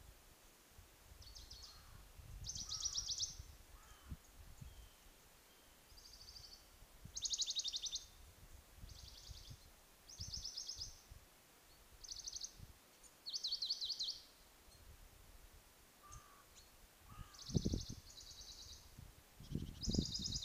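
A small songbird singing short, fast trilled phrases over and over, one every second or two with brief pauses between. A few low rumbles come in near the end.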